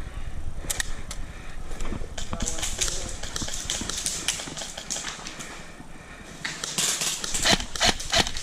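A quick irregular run of sharp clicks and rustling, busiest near the end.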